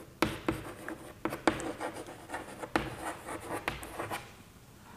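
Chalk writing on a blackboard: scratchy strokes with several sharp taps of the chalk against the board, stopping about four seconds in.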